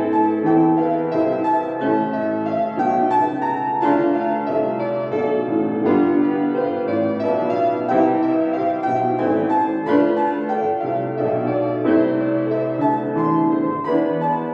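Solo piano playing a classical-style piece, with a steady flow of notes.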